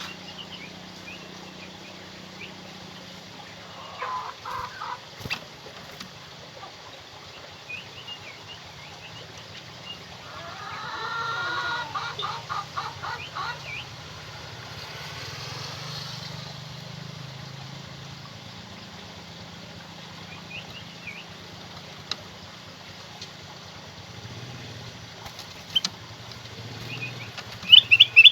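Kutilang emas bulbul calling: scattered short high chirps, two stuttering phrases of quick repeated notes, and a loud rapid trill near the end, over a faint steady low hum.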